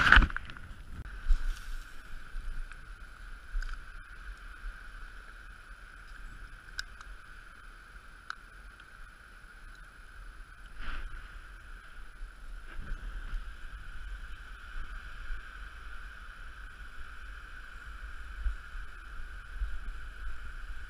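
Wind buffeting an action camera's microphone as a low rumble, under a steady hiss, with a couple of soft knocks near the middle.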